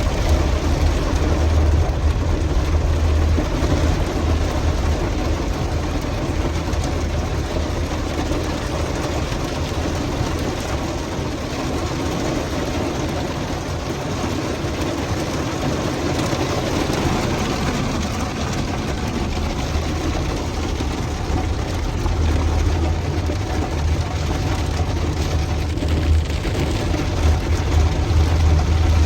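Heavy rain pouring steadily, with a strong low rumble underneath.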